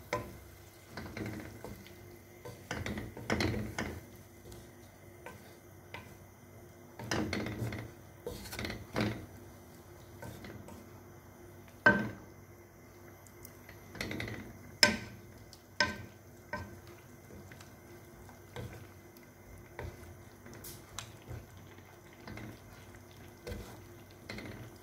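Wooden spatula stirring and turning chicken pieces in sauce in a nonstick frying pan: intermittent scrapes and knocks against the pan, the sharpest knocks about halfway through.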